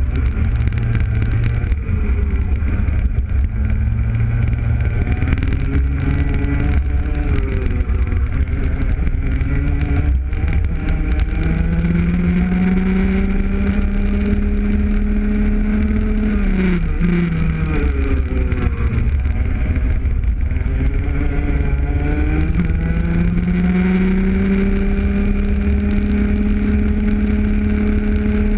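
Rotax Junior Max 125 cc two-stroke single-cylinder kart engine heard from onboard at race pace, its pitch wavering through corners, climbing on the straights, dropping sharply under braking about halfway through, then rising again and holding high. A steady low rumble of wind and vibration runs underneath.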